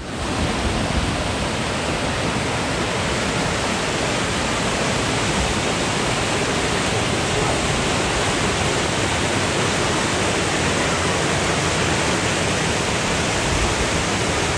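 Steady, loud rushing noise with no rhythm or pitch, starting abruptly as the shot begins.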